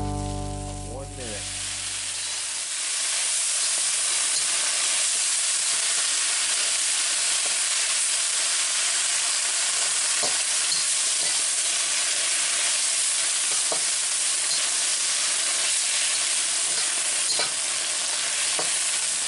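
Bok choy frying in a hot wok: a steady loud sizzle, stirred with a metal spatula that clicks and scrapes against the pan a few times. Guitar music fades out in the first second or two.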